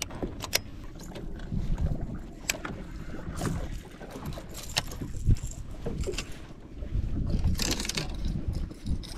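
Wind buffeting the microphone over water slapping a fishing boat's hull, with scattered sharp clicks and knocks from rod and deck handling.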